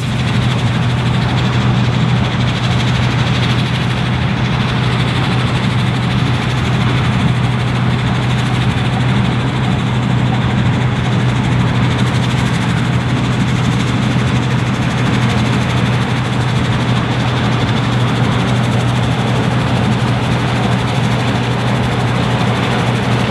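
International 1480 Axial-Flow combine running steadily under load with a strong low hum.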